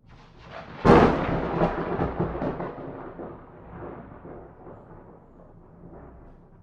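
Thunder: a low rumble builds, then a sharp crack about a second in is followed by a long rolling rumble that fades away.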